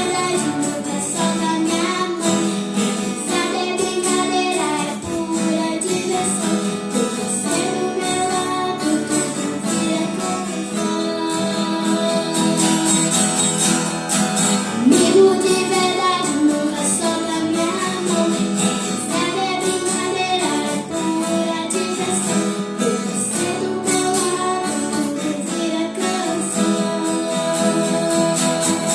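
A song: a female voice singing over acoustic guitar.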